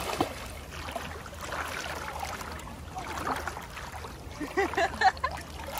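Splashing of a swimmer's freestyle arm strokes and kicks in shallow sea water, with louder splashes near the end.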